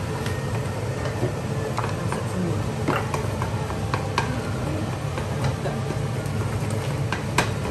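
Wooden spatula scraping and knocking against a nonstick wok while fried rice is stir-fried, giving irregular sharp clicks every second or so, the loudest near the end, over a steady low hum.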